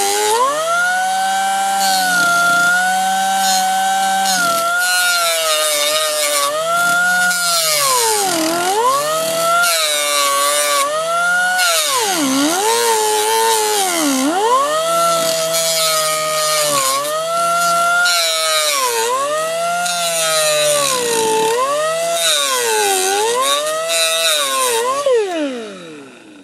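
Small grinder with a cutoff disc cutting into the sheet-steel floor of a minivan to lengthen a seat-bolt hole. The motor's high whine sags in pitch again and again as the disc bites into the metal and picks up between bites, then winds down and stops near the end.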